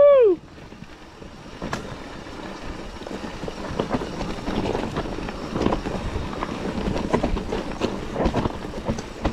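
Mountain bike riding down a rough forest trail: tyres rolling over dirt and stones, with many small clicks and knocks from the bike, and wind on the microphone. Right at the start a loud high squeal falls away.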